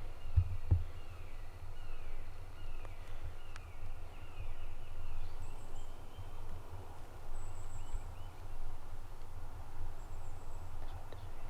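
Wild turkey yelping: a series of short falling notes about twice a second that dies out about four seconds in. A steady low rumble and two thumps are heard near the start.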